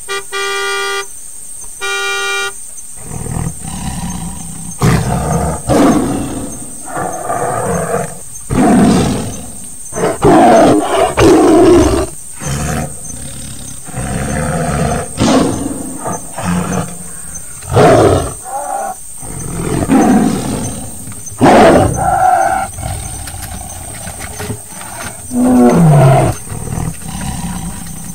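Two short car-horn beeps, then tiger roars and growls, repeated loudly and irregularly for the rest of the time, one near the end falling in pitch.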